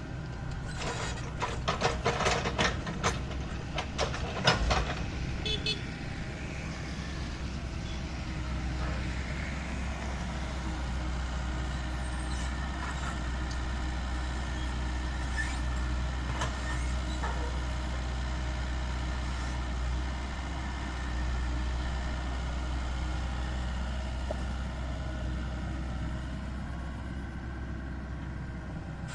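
Excavator engine running steadily with a low drone, with a run of sharp metallic knocks and clanks in the first few seconds.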